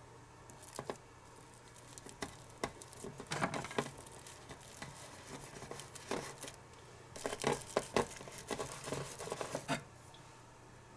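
Light taps, clicks and crinkling from small toy cooking pieces being handled on a tabletop, in scattered single clicks and two busier spells about three seconds in and from about seven to ten seconds in.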